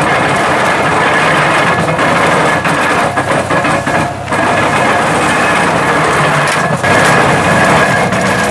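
International Harvester (IHC) hay baler running: a loud, steady mechanical din of engine and baling machinery, with a thin steady whine held above it.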